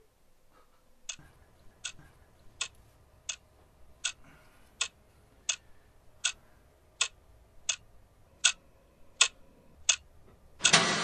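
Crisp, clock-like ticking, evenly spaced at a little under one tick a second, about thirteen ticks. Just before the end a loud, dense sound starts suddenly.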